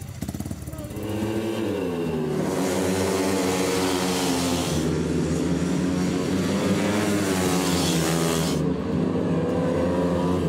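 Speedway motorcycles' 500cc single-cylinder methanol engines revving and running hard as they race, with a rising rev about a second in. The high-pitched edge of the engines drops away near the end.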